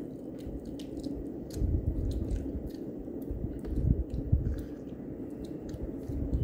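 A child chewing a mouthful of instant noodles, with scattered small clicks from the mouth. The chewing gets louder in two spells, about a second and a half in and around four seconds.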